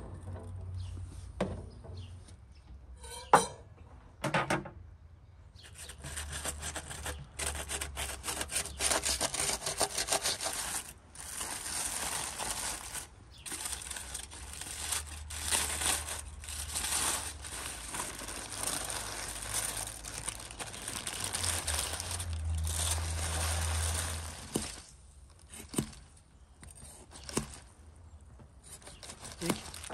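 Aluminium foil crinkling and baking paper rustling as a large foil-wrapped roast is unwrapped by hand, a long stretch of dense crackle. A few sharp knocks come in the first seconds.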